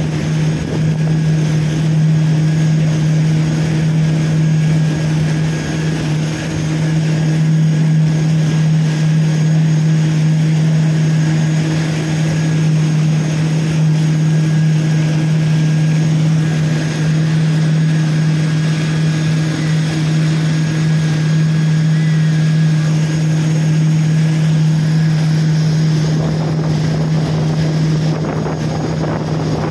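Towing motorboat's engine running at a steady speed, a constant drone, with wind and rushing water.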